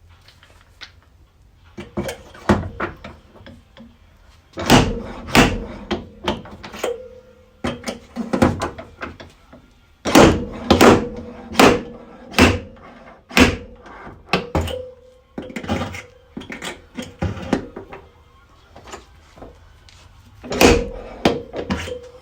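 Slide hammer dent puller pulling on studs welded to a VW Jetta's steel quarter panel: a run of sharp metal knocks in irregular clusters, several with a brief ring from the panel, as the dent is pulled out.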